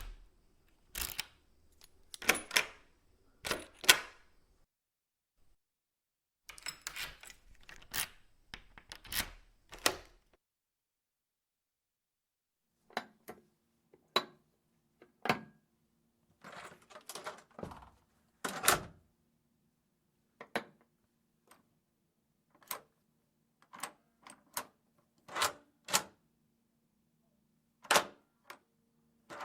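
Metal door latch being forced back and forth, giving sharp clicks and clacks in irregular clusters with short pauses. A faint steady hum sits underneath from about halfway through.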